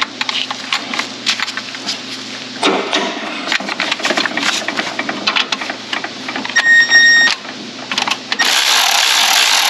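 Ratchet wrench clicking in rapid runs as the nut on the alternator's power cable is worked loose. A short electronic beep comes about seven seconds in, and a steady hiss near the end.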